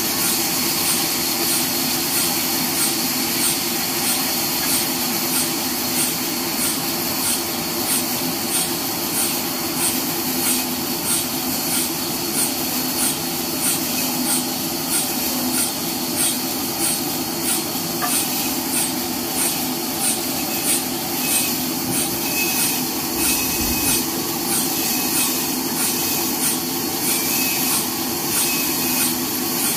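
Horizontal bandsaw mill running steadily and sawing lengthwise through a long neem log on its feed carriage, an even machine whir with sawing noise and a faint, regular tick a little over once a second.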